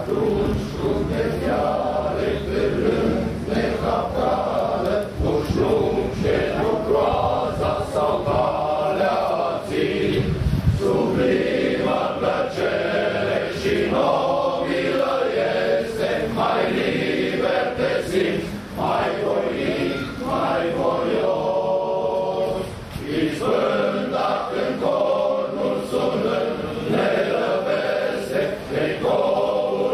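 A choir singing, with sustained held notes and several voices together.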